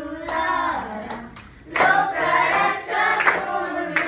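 A group of voices, mostly young women, singing a Christmas carol together, with a few hand claps.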